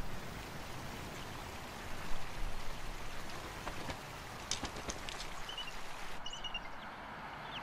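Steady outdoor hiss, even like light rain, with a few faint short high chirps about two-thirds of the way in.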